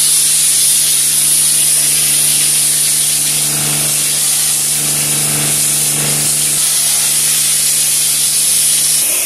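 Pressure washer gun spraying water onto a car body: a steady hiss with a steady low hum beneath it, likely from the washer's motor and pump.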